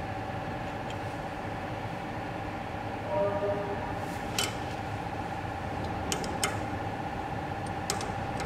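Steady machine hum with a held high tone, from the CNC wood lathe standing powered on, overlaid by a few sharp metallic clicks and taps as a lathe cutting tool and hex key are handled against the steel tool post, mostly in the second half.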